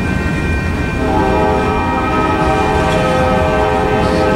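Freight train tank cars rolling through a grade crossing with a steady low rumble. A train horn sounds from about a second in and holds for about three seconds.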